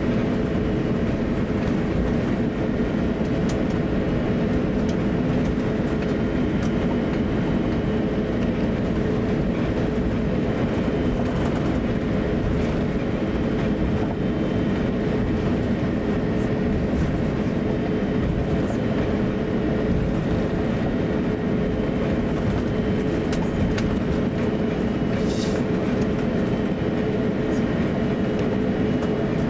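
Cabin noise inside an Airbus A350-900 taxiing: a steady low rumble with a constant hum tone running through it.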